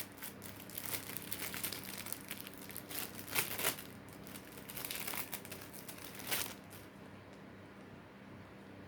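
Packaging crinkling as it is handled and opened by hand, in irregular rustling bursts that die away about seven seconds in.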